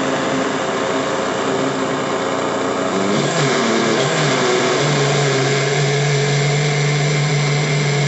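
Imusa Powermix Glass 550 W countertop blender running steadily, its glass jar full of a pink fruit drink. Its pitch shifts about three seconds in and settles into a steadier low hum from about five seconds.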